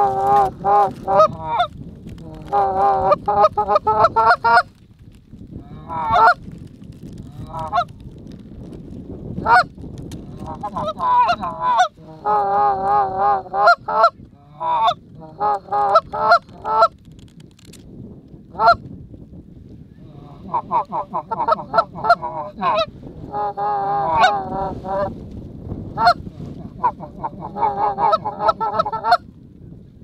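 Goose calling in long, wavering runs. Each run lasts a second or two and comes again and again with short pauses, with a few short sharp notes in between.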